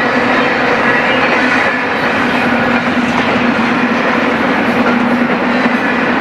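BNSF intermodal freight train's articulated well cars rolling by: a steady rumble and rattle of steel wheels on rail, with a faint steady wheel whine over it.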